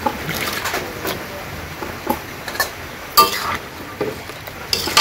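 Metal spoon scraping and clinking against a steel bowl and a metal cooking pan as fried fish heads are scraped into simmering dal and stirred in. Irregular sharp clinks, the loudest a little past three seconds in and another near the end.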